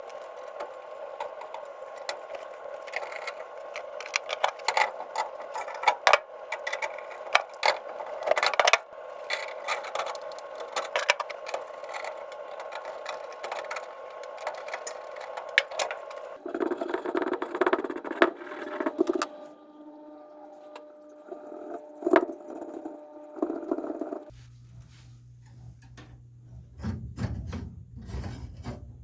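Hands-on work on a gas furnace: many sharp clicks, rattles and scrapes of metal parts and tools over a steady whirring hum, which changes pitch about two-thirds of the way through and drops to a low hum near the end.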